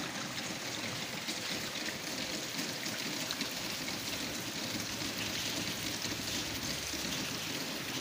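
Steady rain pattering onto a pool of muddy runoff, with the water running and swirling down into a drain opening.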